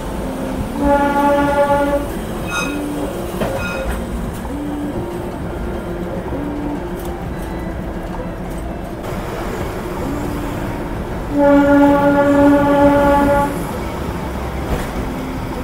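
Darjeeling Himalayan Railway toy train running with a steady rumble, its horn sounding twice: a short blast about a second in and a louder, longer blast of about two seconds near the end.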